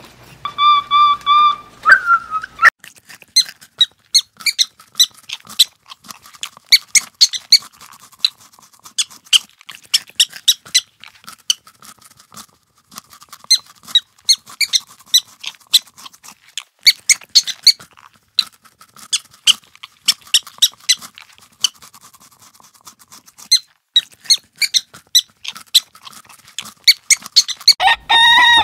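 Many very short, high squeaks in quick, irregular clusters with brief pauses between them. A few longer whistled calls come before them at the start, and hens begin clucking right at the end.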